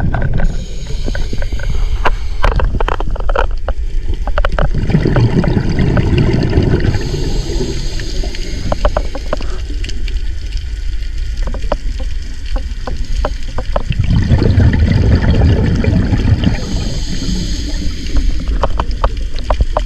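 Underwater scuba regulator breathing: a hiss on each inhale alternating with bursts of rumbling exhaust bubbles, over several breaths. Scattered sharp clicks and crackles run throughout.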